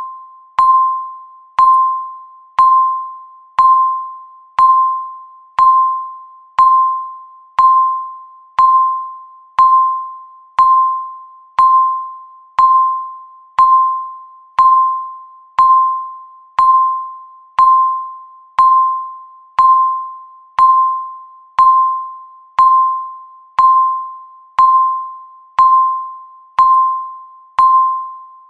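A countdown timer's beep sounding once every second, the same pitch each time: each beep starts sharply and fades away like a chime before the next.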